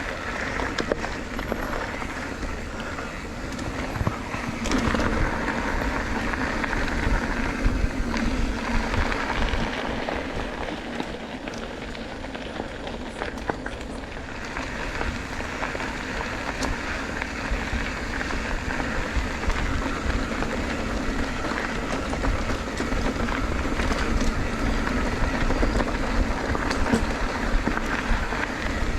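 Steady wind rush on the microphone and tyre noise from a bicycle being ridden on the road, easing off a little around the middle and then building again.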